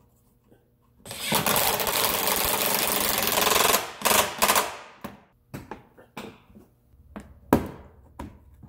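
Cordless DeWalt impact driver hammering in the splash-shield screw for about three seconds, then a brief second burst to snug it. A few light clicks follow, with one sharp snap near the end as a plastic push clip is pressed in.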